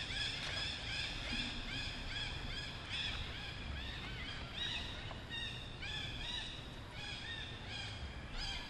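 Rapid high-pitched chirping animal calls, short rising-and-falling notes repeated several times a second and overlapping throughout.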